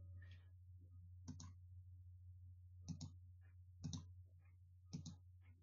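Faint computer mouse clicks, four or five spread over a few seconds, over near silence with a faint low hum.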